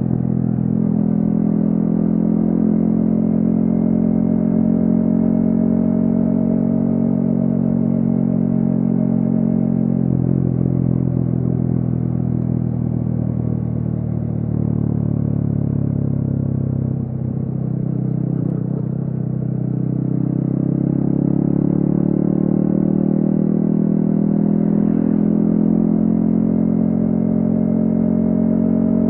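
Yamaha XSR155's single-cylinder engine, running through a DIY exhaust while the bike is ridden. The revs hold steady at first, ease off about a third of the way in, sink lowest about two-thirds through, then climb steadily again as it accelerates.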